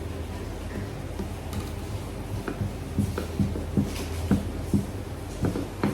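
Rolling pin working pastry dough on a table: soft knocks about twice a second in the second half, over a steady low hum.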